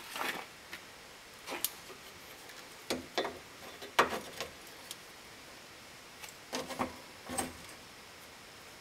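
Scattered metal clicks and clanks of a clamp being handled and fastened onto a car's suspension arm, the sharpest knock about four seconds in.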